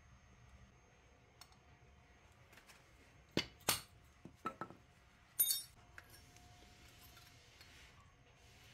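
Sharp metallic clinks of brake pads and hardware knocking against a Brembo six-piston brake caliper as they are handled: about six in a quick cluster in the middle, the loudest near the end of it.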